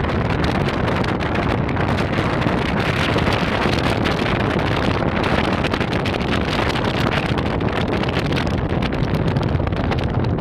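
Wind buffeting the microphone on the deck of a boat under way, over a steady low rumble from the boat and the water.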